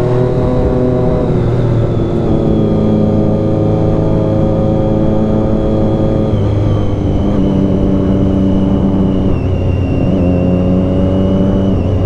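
Triumph Daytona 675's three-cylinder engine running at a steady cruise while the motorcycle is ridden, its note dropping a little about six seconds in.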